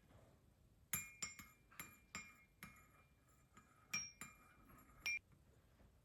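Glass or ceramic dishes clinking as they are handled: about ten light, ringing clinks, the loudest about a second in, near four seconds and just past five.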